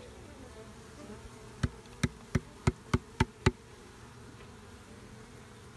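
Honey bees buzzing, with a quick run of seven sharp knocks, about three a second, starting about a second and a half in.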